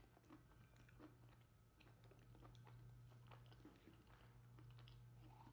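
Faint chewing of a peanut butter and pickle sandwich, small scattered mouth clicks over a low steady hum.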